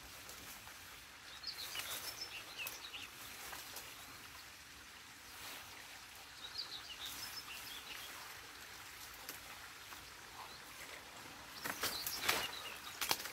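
Brush and sticks rustling and snapping as they are pulled out of a beaver dam, loudest near the end, with a bird chirping a few times in the background.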